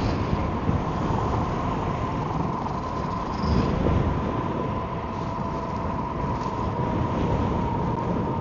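Wind buffeting the microphone while riding an Emove Roadster electric scooter, with a steady high whine underneath.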